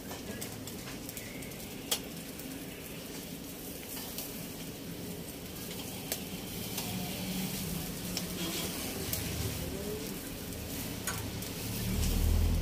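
Marinated mutton sizzling on a wire grill over hot charcoal, a steady crackling hiss with scattered sharp pops. A low rumble swells near the end.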